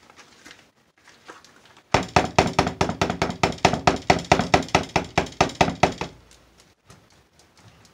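Switched-off immersion blender head knocking rapidly against the sides of a plastic mixing bowl of thick soap batter, about six knocks a second. The knocking starts about two seconds in and stops about four seconds later.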